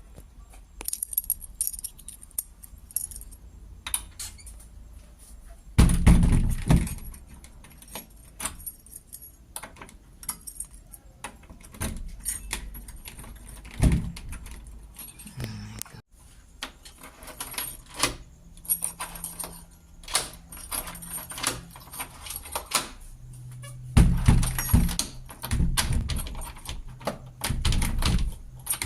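Metal deadbolt parts clinking and rattling as the lock is fitted into a door, with several heavy knocks against the door.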